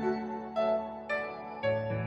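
Background music: soft piano or keyboard notes over a held low bass note.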